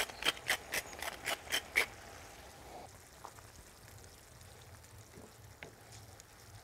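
Wooden pepper mill being ground over the pan: about eight quick crunching twists, roughly four a second, in the first two seconds. After that the paella simmers faintly, with a couple of light ticks.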